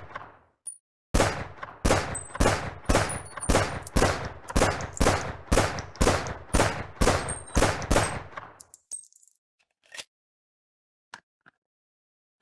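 Semi-automatic light weapon firing a rapid string of about fifteen single shots, roughly two a second, with brief metallic pings between them. The shooting stops, and a few faint mechanical clicks follow near the end.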